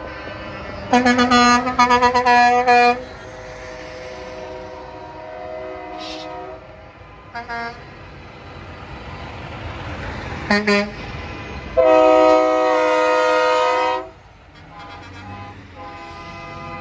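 Semi-truck air horns sounding over the steady running of passing diesel rigs. There is a quick run of several blasts about a second in, a few short toots in the middle, and one long blast of about two seconds near the end.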